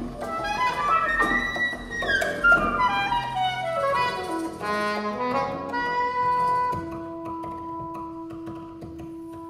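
Saxophone, cello and hand percussion playing together live: a quick run of notes falls in pitch over a few seconds, with light drum taps underneath, then one note is held steady near the end.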